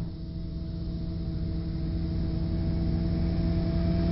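A large truck's engine approaching: a steady low rumble with a held hum that grows gradually louder and rises slightly in pitch.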